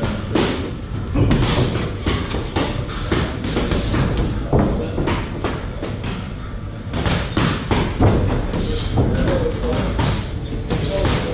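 Boxing gloves landing in sparring: irregular thuds and smacks of punches, several a second at times, with voices in the background.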